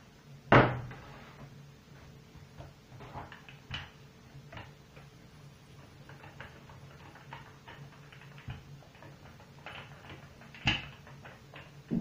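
Hands pressing and stretching pizza dough thin on a wooden board: scattered soft taps and scuffs, with a sharp knock about half a second in and a smaller one near the end.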